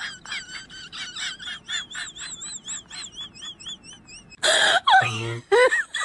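A rapid run of high, warbling chirps, about five a second, then a loud harsh burst about four and a half seconds in, followed by a man's wailing yell falling in pitch.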